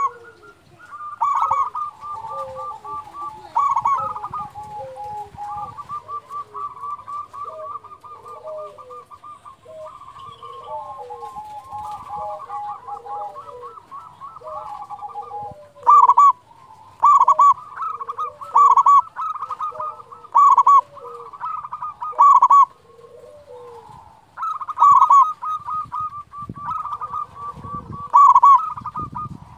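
Zebra dove (perkutut) singing: runs of rapid rolling, staccato coos. From about halfway through, loud phrases repeat about once a second, with fainter lower-pitched notes between them.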